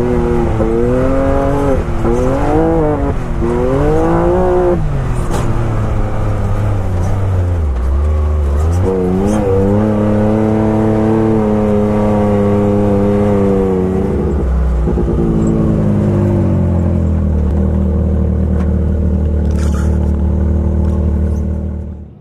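Can-Am Maverick X3's turbocharged three-cylinder engine heard from the driver's seat under hard driving, revving up and down for the first few seconds, then pulling at a steady speed. Near the end the sound drops away sharply.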